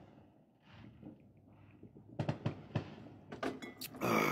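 Scattered sharp firecracker pops, several in a row about halfway through, followed by a louder rushing burst near the end.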